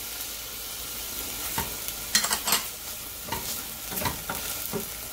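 Jasmine rice and garlic sizzling in oil in a stainless steel pot, stirred with a wooden spatula that scrapes through the rice in several short, uneven strokes over a steady frying hiss.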